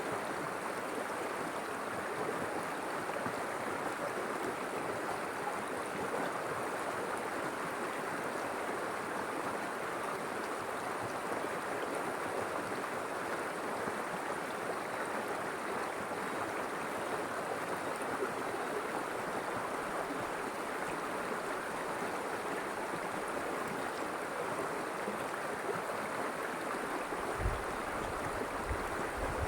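River water flowing steadily over its bed, an even rushing sound without pauses. A few brief low thuds come near the end.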